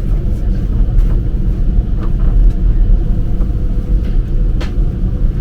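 Steady low rumble inside the cabin of an Airbus A330-300 airliner, its engines running at ground idle, with a faint steady hum and a few faint clicks.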